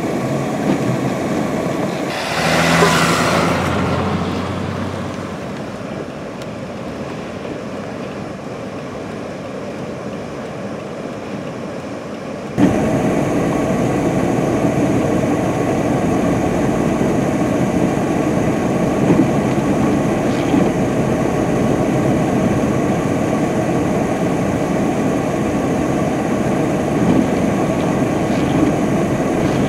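Vehicle engine and tyres working through deep snow: a brief burst of engine revving and tyre spin about two seconds in, then a steady running noise that jumps louder about halfway through.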